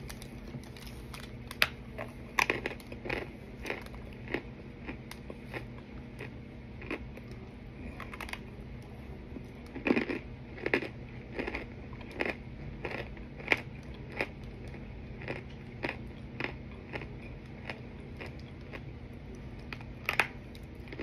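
Crisp bites and chewing of pressed cornstarch: irregular sharp crunches, a few clustered bursts louder than the rest, over a steady low hum.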